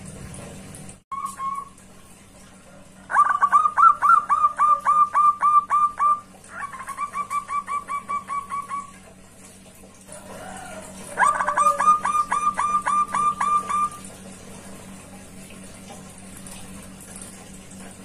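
Zebra dove (perkutut) calling: runs of rapid, staccato cooing notes, each hooked downward in pitch. There are two loud runs, with a softer, quicker run between them.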